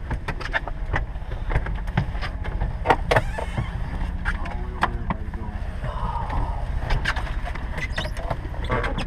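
Irregular knocks, clicks and rustles from a handheld camera being moved about inside a small aircraft cabin, over a steady low rumble, with faint voices.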